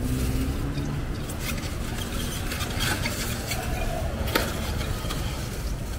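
Light clicks and clatter of styrofoam food boxes and containers being handled at a street food cart, over a steady low street rumble.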